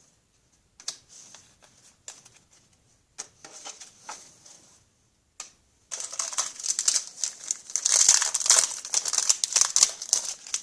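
Hockey trading cards being handled with soft scattered flicks and rustles, then from about six seconds in the dense crinkling of a foil card-pack wrapper being worked open.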